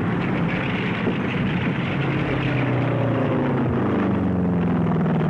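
An engine drones steadily, its pitch slowly falling from about two seconds in, over a steady hiss.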